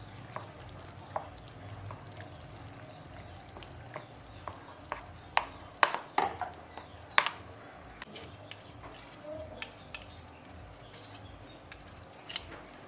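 Wire balloon whisk stirring milk into flour in a glass bowl to make batter, with sharp, irregular clicks as the wires strike the bowl, loudest about six and seven seconds in.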